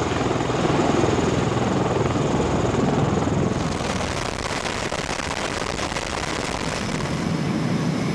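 Steady aircraft engine noise, its character changing about three and a half seconds in as a higher hiss joins.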